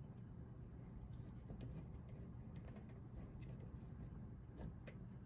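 Faint, scattered light clicks and rustling, as of small hard objects and packaging being handled.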